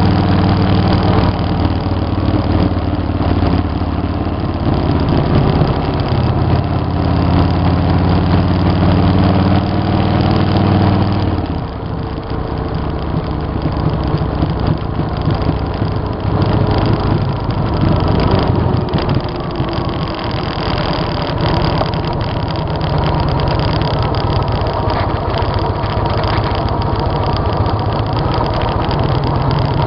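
V-twin cruiser motorcycle engine running under way at road speed, with wind rush over the bike. About eleven seconds in the engine note drops back and quietens, then builds again a few seconds later.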